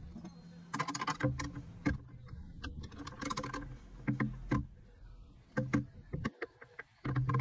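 Irregular sharp metallic clicks and ticks, in two quick flurries about a second in and around three seconds, over a low steady hum. The sound comes from tightening a makeshift threaded-rod press that is slowly forcing a benchtop mill's high-low gear shaft and bearings out of the head casting.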